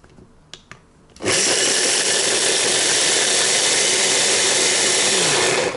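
Hand blender motor running in its chopper bowl, grinding hazelnuts and almonds. It starts abruptly about a second in, runs at a steady pitch for about four and a half seconds, then stops.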